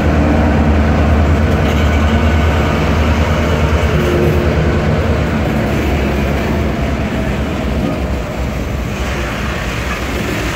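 BNSF diesel locomotives running past close by, their low engine drone fading after about five seconds as freight hopper cars roll by with steady wheel-on-rail noise.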